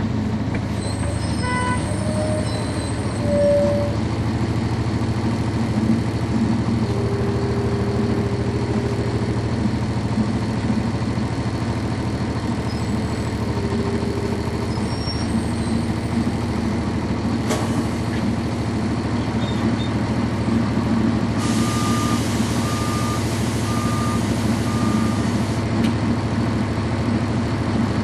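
Cummins ISC diesel engine of a NovaBus RTS transit bus idling steadily, heard from inside the bus. About three-quarters of the way through comes a hiss of released air lasting about four seconds, with four short beeps during it.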